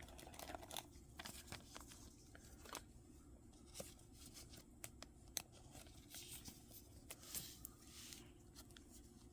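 Faint handling noises of trading cards and foil booster-pack wrappers: scattered light clicks and taps with a few brief soft crinkles.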